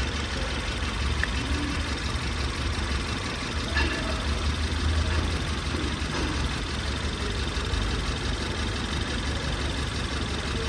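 A 2018 Ford Taurus four-cylinder turbo engine idling with a steady low rumble. It is running rough from a misfire: the scan tool reads cylinder 1 misfiring (code P0301).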